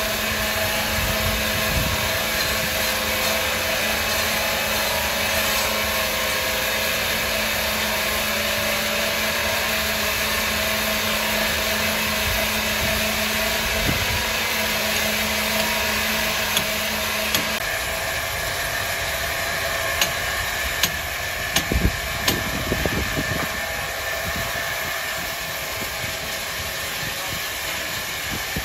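Wood-processing saw machinery running with a steady loud drone and a low hum; the hum drops out about two thirds of the way through, followed by a cluster of sharp knocks.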